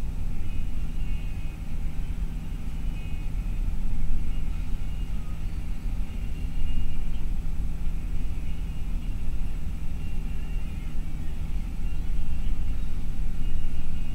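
Steady low rumble of a bus's engine and tyres at highway speed, heard from inside the cabin, with a constant low hum.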